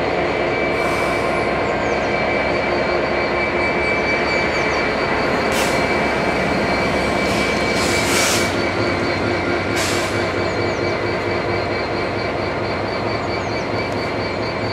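EWS Class 66 diesel locomotive passing slowly, its EMD two-stroke V12 engine running with a steady mixture of rumble and whine. A few brief, sharp, higher-pitched noises come around the middle.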